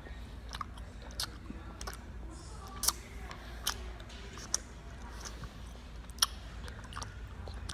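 Faint, irregular clicks and taps, about a dozen spread unevenly, over a low handling rumble on a hand-held phone's microphone.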